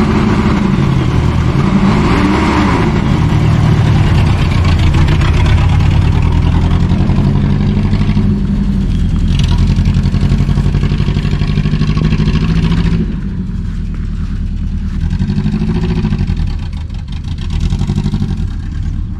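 Farm truck's engine running as it is driven, its pitch rising and falling several times as it speeds up and slows. It gets quieter about two-thirds of the way through.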